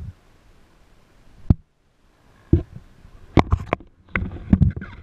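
Camera being handled: scattered sharp knocks and clicks on the microphone, turning into a busier run of knocks and rubbing about four seconds in.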